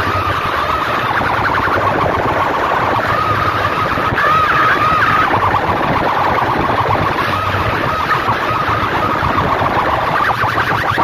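Massed banks of horn loudspeakers blaring a loud, warbling siren-like tone over dense noise. About four seconds in, the warble climbs higher and louder for about a second.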